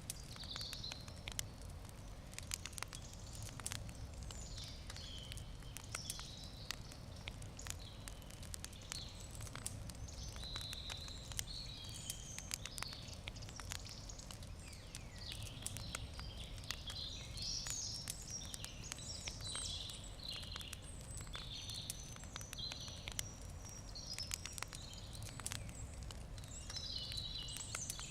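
Wood campfire crackling, with many small sharp pops and snaps over a low steady rumble. Birds chirp and sing intermittently in the background.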